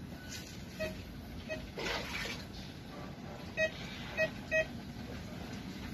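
Handheld electronic treasure detector giving short, irregular electronic beeps, five in all, the last three close together and loudest. A brief rushing noise about two seconds in.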